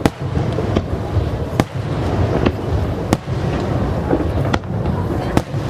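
Aerial fireworks shells bursting one after another: sharp bangs every second or so over a steady rumble and crackle of other bursts.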